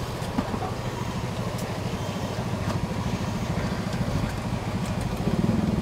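A motor running steadily with a low, fast throb, growing a little louder near the end.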